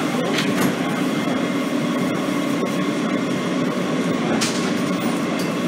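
Steady running rumble inside a Kawasaki R160B subway car as the train gets under way after its doors close, with two sharp clicks about four seconds apart.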